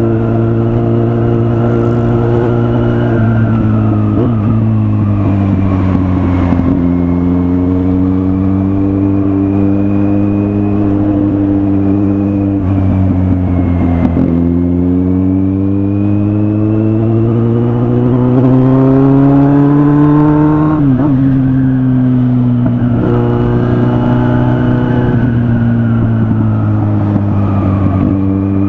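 Kawasaki Z800 inline-four motorcycle engine running under way. Its pitch climbs steadily as it accelerates and drops sharply several times, as at gear changes.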